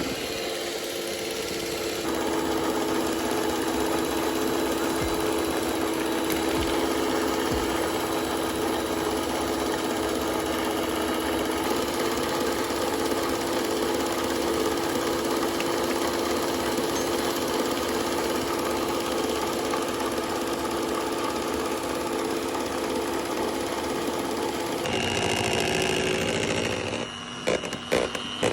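Electric mixer running steadily, beating cream cheese and sugar; its motor tone shifts about two seconds in and again near the end, followed by a few knocks and brief cut-outs just before the end.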